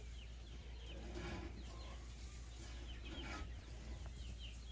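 Birds chirping over and over in short, high, falling notes, with two brief rushes of noise about one second and three and a half seconds in.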